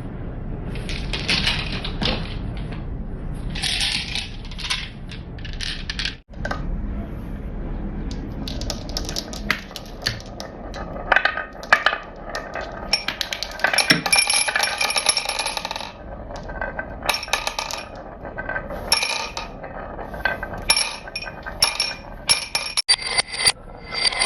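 Marbles rolling and clattering through a marble run track: a rolling rumble with many sharp clicks and clinks as they drop and strike track pieces. The clicking grows busier in the second half.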